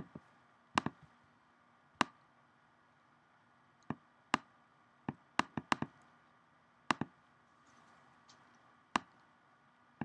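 Sharp, short clicks and taps at irregular intervals, about a dozen, some in quick pairs, over faint room hiss.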